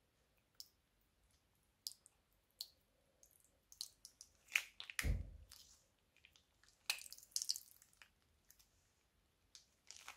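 Pink slime squeezed out of a plastic piping bag into a bowl of slime: scattered wet, sticky clicks and squelches, loudest in a squelch about five seconds in and a crackly spell around seven seconds.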